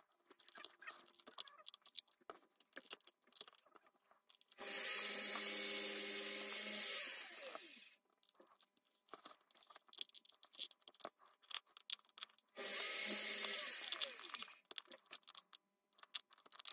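Plastic trim tool prying around the plastic clips of a car switch housing: small clicks, snaps and scrapes of plastic. Twice, for two or three seconds each, a small electric motor whirs, starting suddenly and falling in pitch as it runs down.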